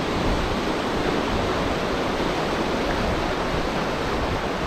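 Muddy floodwater rushing through a concrete spillway channel, churning white water making a steady, unbroken rush.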